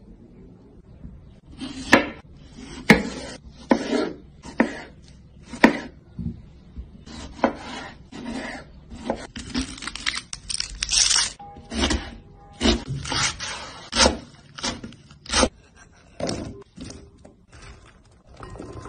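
Food being prepared on a wooden cutting board: irregular knife knocks and scrapes as vegetables are cut and handled, some a second apart and some in quick clusters.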